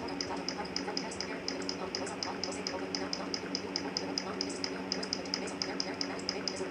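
Fast, even ticking, about seven ticks a second, over a steady low hum.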